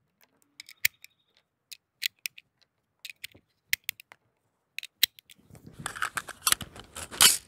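Steel-cased 7.62×39 cartridges being pressed one at a time into a rifle magazine, a series of sharp clicks every half second or so. From about two-thirds of the way through there is a denser rustle of handling with more clicks, the loudest one near the end.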